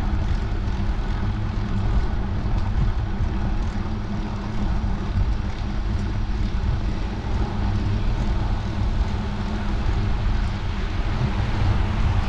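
Steady wind noise on a bike-mounted camera's microphone while riding along a paved road: a constant low rumble with a hiss above it.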